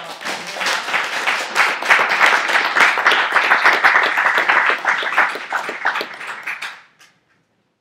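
Audience applauding, many hands clapping together for about seven seconds, then dying away shortly before the end.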